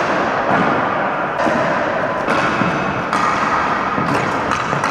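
Ball hockey play on a hardwood gym floor: sticks and the ball knocking against the floor and each other in a string of sharp knocks, echoing in the gymnasium.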